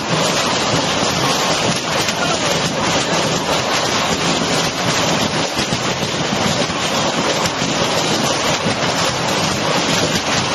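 Large hailstones pelting flat rooftops and pavement in a downpour: a dense, steady clatter of countless impacts that does not let up.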